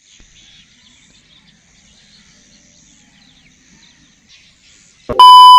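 Faint outdoor ambience of birds chirping and insects. About five seconds in, a loud, steady electronic beep cuts in and holds.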